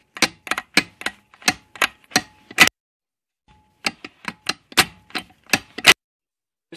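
Ratcheting torque wrench clicking on a bolt as it is worked, with sharp metallic clicks about three a second. The clicks come in two runs with a pause of about a second between them.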